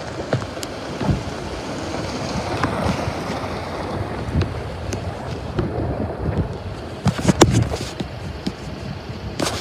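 Small SUV driving over a gravel road, its tyres crunching the stones, under a steady rush of wind on the microphone. A few sharp clicks near the end.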